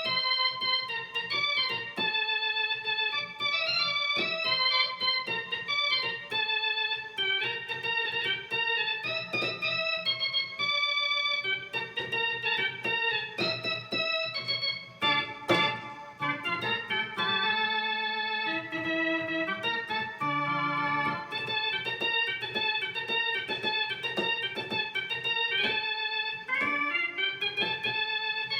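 Yamaha YC-20 combo organ playing a cumbia melody with bass notes, registered with the 16', 8', 4', 2 2/3', 2' and 1 3/5' drawbars pulled and all vibratos off.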